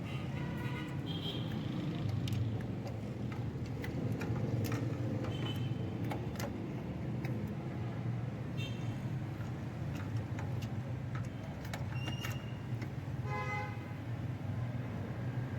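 2013 Suzuki Cultus EFI engine idling with a steady low hum while misfiring. The misfire is on cylinder 2, where a valve has broken. Scattered light clicks and a few brief high pitched tones sound over it.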